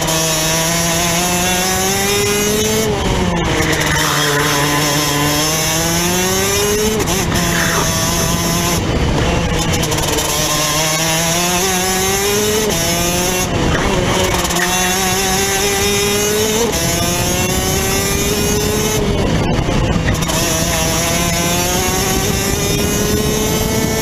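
Rotax DD2 kart's 125cc single-cylinder two-stroke engine heard onboard at racing speed. Its pitch climbs steadily along the straights and drops sharply into the corners, several times over, with wind and road noise alongside.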